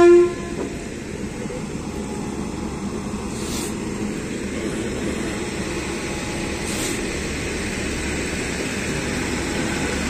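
A WAP-7 electric locomotive's horn cuts off just after the start. The locomotive then runs slowly with a steady rumbling hum that grows gradually louder as it draws up to the coaches to couple on during an engine change.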